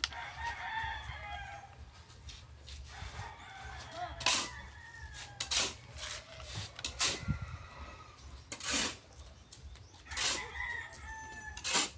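A rooster crowing, with several short, sharp noises close by.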